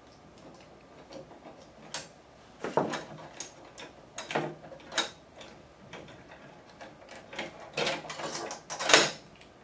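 Hand driver unscrewing the small quarter-inch bolts that hold a thermal copier's bulb assembly, with irregular clicks and small metal clinks. The loudest comes near the end.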